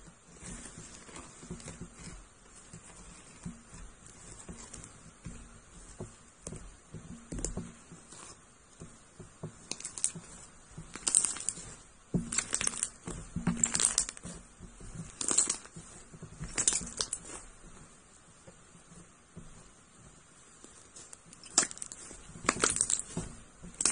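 Hands pressing into and kneading slime whose dried blue top crust has cracked, giving irregular crackles and sticky pops. Louder clusters of pops come through the middle and again near the end.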